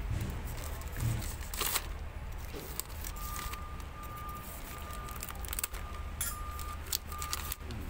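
Crinkling and rustling of a plastic packet holding a new air-compressor gasket as it is handled, in scattered crackles that are busiest in the second half. A steady low hum runs underneath, and a thin steady tone comes and goes from about three seconds in.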